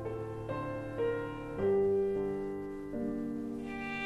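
Slow piano music, held notes and chords changing every second or so.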